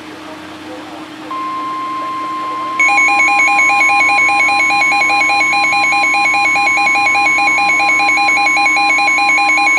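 NOAA Weather Radio alert tone, a steady single tone starting about a second in that signals an emergency warning is about to be read. About a second and a half later a weather radio receiver's own alarm sounds over it, a loud, fast alternating beep.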